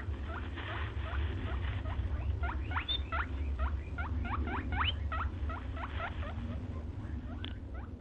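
A small green parakeet giving a fast run of short, squeaky rising chirps, about two to three a second, over a steady low rumble.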